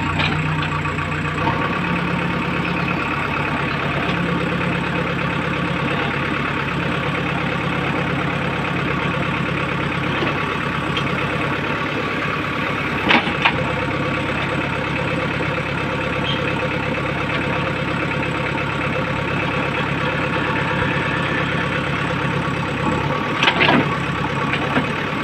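Diesel engine of a JCB 3DX backhoe loader idling steadily, with a couple of short sharp clicks about halfway through and near the end.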